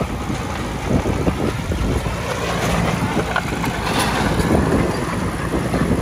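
Komatsu D20A bulldozer's diesel engine running steadily, with scattered knocks and clanks from the working machine.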